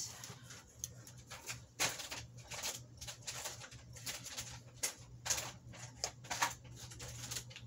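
Someone rummaging while searching for a misplaced magnifying glass: irregular rustling and light clattering of objects being moved about, over a low steady hum.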